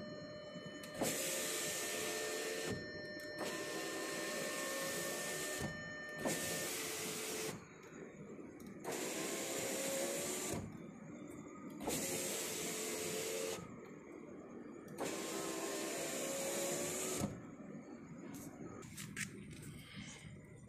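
Audi A4 B8 rear door power-window motor and regulator running the newly installed door glass in six short runs of one to two and a half seconds each, with a whine and brief pauses between, as the glass is cycled to check the installation. The runs stop about three-quarters of the way through, followed by faint handling noise and a single click.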